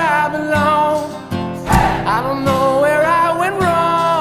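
Background music: a song with a voice singing over strummed acoustic guitar.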